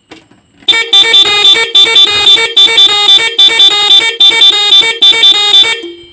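Motorcycle electric horns driven by a Roots melody maker, playing its preset pattern F: a loud, quickly pulsing run of changing horn notes that starts about a second in and stops shortly before the end.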